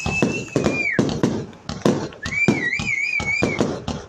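Fireworks going off: a rapid run of bangs and crackles, with a long high whistle near the start and a wavering, warbling whistle from about halfway in.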